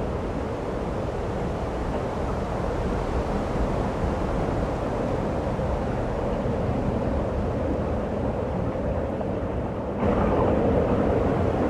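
Steady snowstorm wind, a low even rush with no distinct events, which jumps louder suddenly about ten seconds in.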